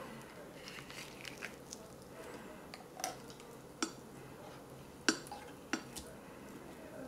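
Spoon scraping firm pâté out of a metal ration tin over a ceramic dish, with soft scraping broken by several sharp clinks of spoon against tin and dish.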